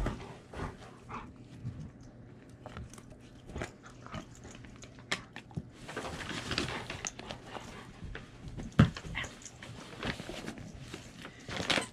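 A German Shepherd rummaging and mouthing at a cardboard box lined with tissue paper: scattered clicks, knocks and paper rustling, with a longer burst of rustling about six seconds in and one sharp thump near nine seconds.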